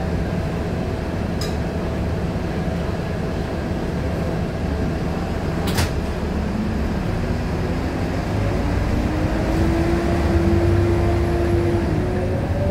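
Scania K230UB single-deck bus under way, heard from inside: a steady diesel engine and road rumble. About halfway through, a drivetrain whine rises in pitch as the bus picks up speed, then holds. There is a single sharp clunk a little before it.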